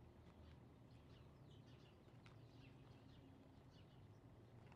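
Near silence with faint bird chirps: many short, high chirps falling in pitch, several a second, over a low steady hum, with one sharp tick about halfway through.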